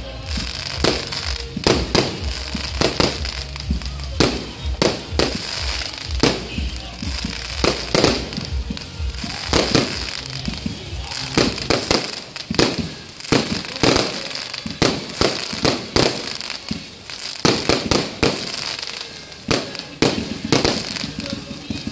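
A fireworks display going off: sharp bangs and pops of shells bursting in irregular quick succession, often several a second.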